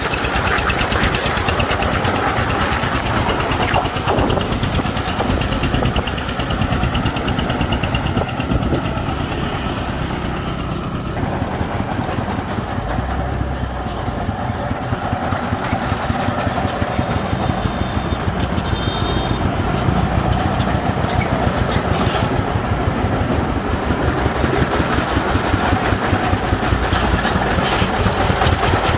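Engine running steadily with a fast, even pulse, easing off a little in level around the middle.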